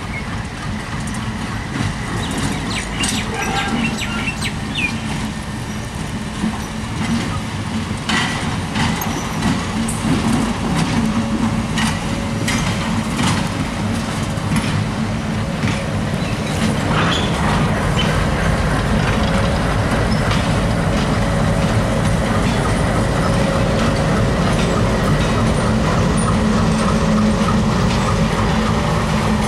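Diesel locomotives running light, engines droning steadily as they roll past, with irregular metallic clicks of wheels over rail joints and points. The engine sound grows louder in the second half as the second locomotive comes closer.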